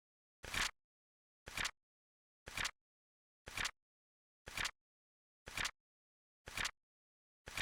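Flip-clock flip sound effect repeating once a second, each a short double click with dead silence between.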